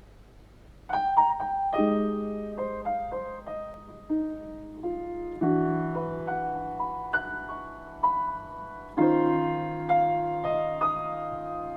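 Solo piano introduction to a slow jazz ballad, played through a car audio system. It starts about a second in with sustained chords and single notes that ring out and fade.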